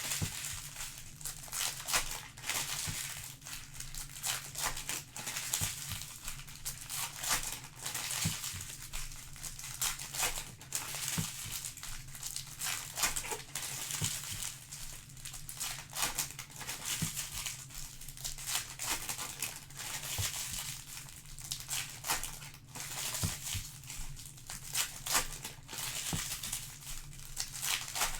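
Trading-card pack wrappers crinkling and tearing as packs are opened: a continuous crackle of many small sharp clicks, over a steady low hum.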